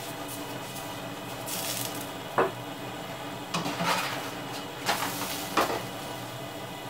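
Roti being oiled with a pastry brush in a non-stick frying pan, then turned with a spatula: a sharp knock about two seconds in, followed by several seconds of the spatula scraping and clattering against the pan.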